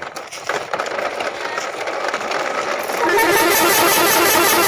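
Plastic toy trucks rattling and scraping as they are dragged over brick paving; about three seconds in, a loud, rapid electronic beeping tune starts and runs until it cuts off sharply.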